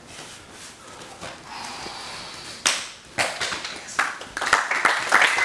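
A few sharp slaps or claps, then onlookers' applause starting about four and a half seconds in and growing louder.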